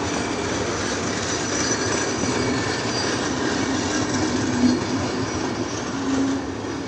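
LHB passenger coaches of an Indian Railways express running past: a steady rumble of wheels on the rails, with thin high squealing tones over it.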